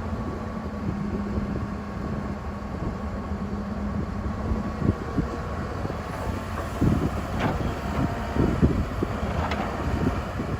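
Excavator diesel engine running, with a steady low hum for about the first five seconds and several sharp clanks in the second half.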